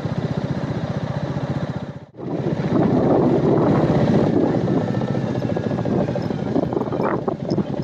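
Royal Enfield Meteor 350 single-cylinder engine running with an even, rapid beat. It drops out abruptly about two seconds in, then comes back louder and rougher, mixed with wind and road noise.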